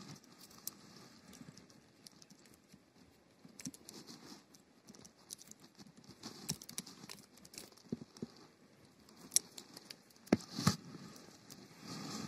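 Light handling noise: a plastic fishing-line winder being turned in the hand among dry reed stalks, with scattered faint clicks and rustles. A few sharper knocks come about ten seconds in.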